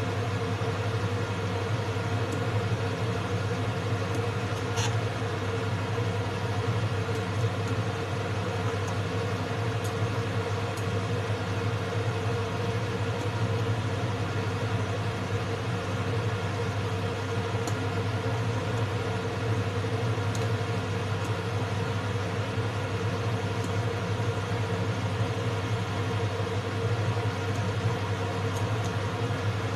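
A steady motor hum that holds one even pitch throughout, with a few faint light clicks now and then.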